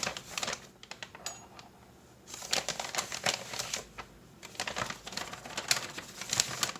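A tablespoon scooping cocoa powder and tapping against the container and the food processor bowl. Rapid clicks and scrapes come in three bouts with short pauses between.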